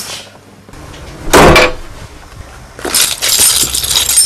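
A loud crash about a second and a half in, then from about three seconds a dense, high clinking and jangling.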